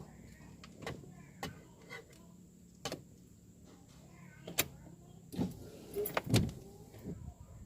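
A series of about nine sharp, irregular clicks and knocks from hand work on a car's air-conditioning switch panel, the loudest ones coming near the end.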